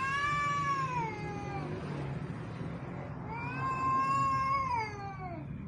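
A cat caterwauling: two long, drawn-out yowls. The first falls in pitch as it ends. The second starts about three seconds in and slides down as it fades.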